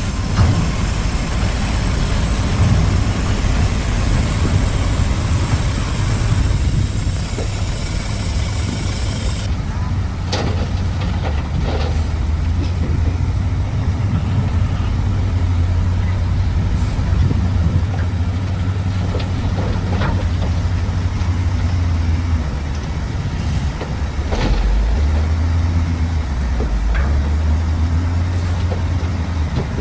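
Heavy construction machine's engine running steadily under load, with scattered clanks and knocks from about ten seconds in.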